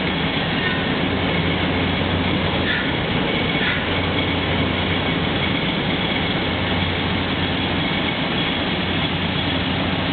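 Drilling rig machinery running at a well being drilled while drilling mud is circulated: a loud, steady mechanical din with a low hum underneath.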